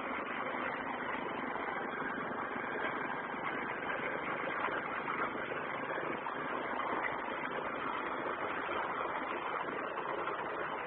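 A vehicle's engine running steadily under a continuous rushing noise.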